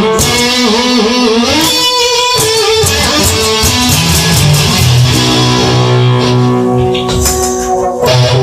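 Instrumental rock music: an electric guitar lead with bending notes over bass and drums, settling into held chords about halfway through.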